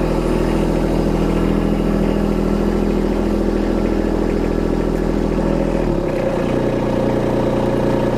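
Kubota B-series compact tractor's three-cylinder diesel engine running steadily as the tractor backs away; the deep part of the engine note drops off about six seconds in.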